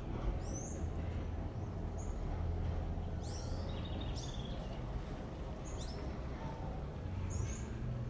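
Small birds chirping in short, high, falling calls, about one a second, over a steady low rumble of city background noise.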